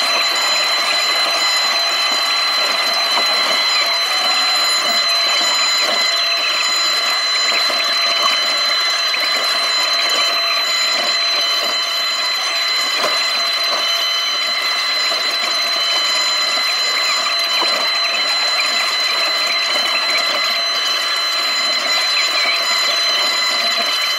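Takeuchi TB290 mini excavator working as it digs, heard from the operator's seat: a steady, high-pitched hydraulic whine over running machinery noise.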